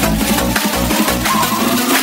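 Electronic dance music with a steady beat, an aerobics workout backing track. A rising synth sweep begins near the end.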